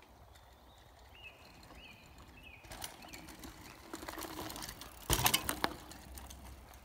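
Mountain bike rolling down a dirt trail over fallen leaves, its tyre noise growing as it approaches. About five seconds in it passes close by with a short burst of rattles and clicks, then fades as it rides away.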